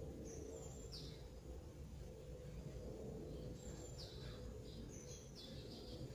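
Faint background noise with a steady low hum, and short high chirps of small birds, once about a second in and several times between four and six seconds.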